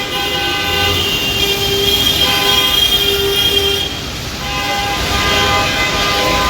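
Vehicle horns honking over continuous road traffic noise. Several horns of different pitches overlap in long blasts, with a short lull about four seconds in.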